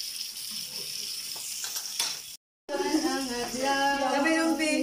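Pork belly sizzling on a grill pan, a steady hiss that drops out briefly about halfway through. After the break, several voices come in loud over the sizzle.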